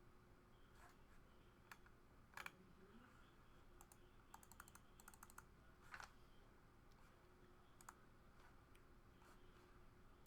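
Near silence with faint, scattered clicks and taps, a few of them in quick runs of several clicks.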